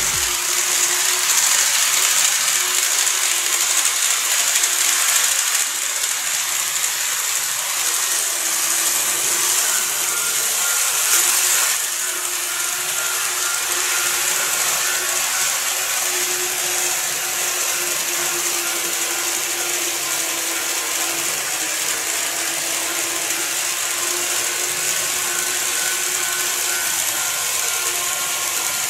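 KATO N-gauge model of the E257 series 5500 running on layout track: a steady whirring and rattling of the small motor, gears and wheels on the rails, with a faint hum that wavers slightly as it runs.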